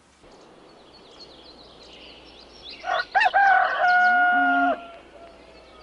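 A rooster crowing once, about three seconds in: a short rise into a long held note of nearly two seconds that then drops away. Small birds chirp before it.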